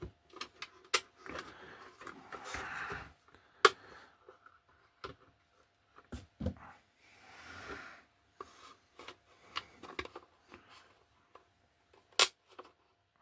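Small parts being handled on a workbench: a few sharp clicks and stretches of scraping as tiny magnets are worked into holes in a 3D-printed plastic wagon body.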